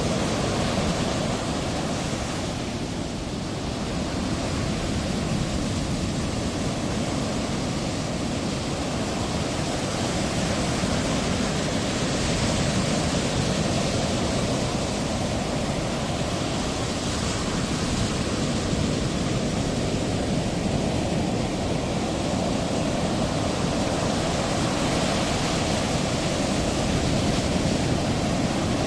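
Steady rushing noise of ocean surf breaking and washing, swelling and easing slowly.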